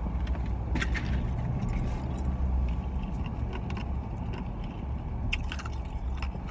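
Steady low rumble of road noise inside a moving car's cabin, with a few sharp crunches of ice chips being chewed about a second in and again near the end.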